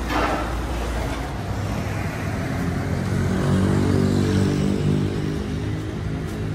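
A motor vehicle's engine running nearby over a low traffic rumble, its hum building about a second and a half in and strongest in the middle, after a brief burst of noise at the very start.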